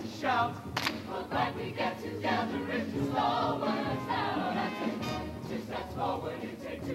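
A mixed-voice show choir singing together into stage microphones, with a sharp hit just under a second in.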